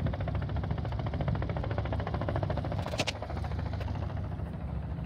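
Piston engine and propeller of a light single-engine plane taxiing close by: a fast, even buzz over a low rumble that eases off slightly toward the end. A sharp click about three seconds in.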